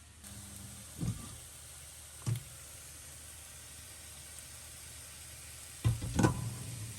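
Food frying in a pan with a steady sizzle, and a few knocks of a utensil against the pan, the loudest near the end.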